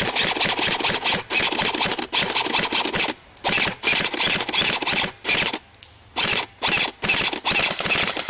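Airsoft rifle firing on full auto: rapid clicking shots in long bursts, with short pauses about three, five and six seconds in.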